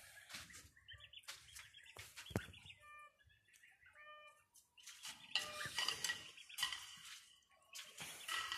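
Hens clucking in a string of short pitched notes, followed by scuffing and rustling noises of movement in the coop.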